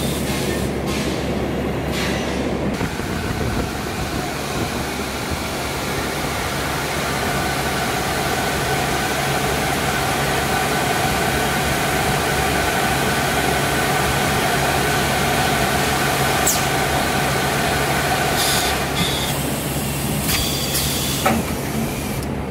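Steady running noise of a full-auto vacuum forming machine and the factory machinery around it, with a constant low hum and a few faint steady tones. A couple of sharp clicks come in the latter part.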